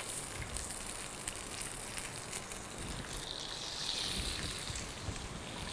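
Oiled salmon pieces sizzling steadily on a hot, greased ridged grill pan, with many small crackles and pops.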